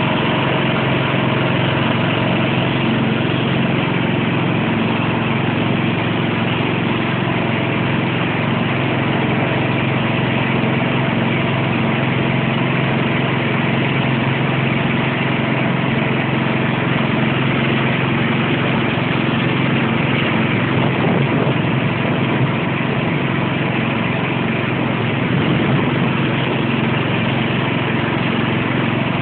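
Sentinel garden tractor's engine running steadily at an even speed, with no change in pitch or level.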